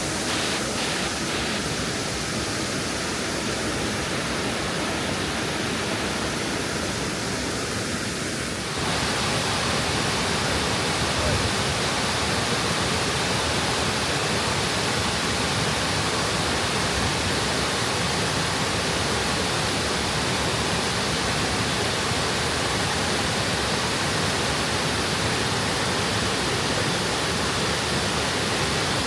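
A large waterfall's water rushing steadily. About nine seconds in it gets a little louder and brighter.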